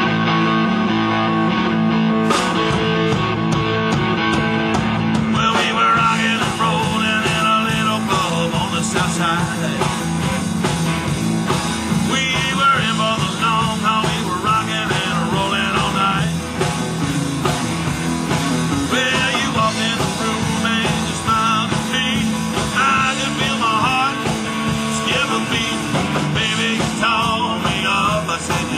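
A live blues-rock band playing a song: electric guitars over a drum kit.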